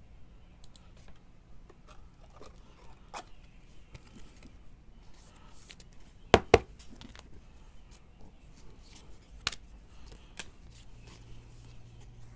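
Trading cards being handled and flipped through on a table: soft sliding and rustling, with a sharp double click a little past halfway and another click about three seconds later.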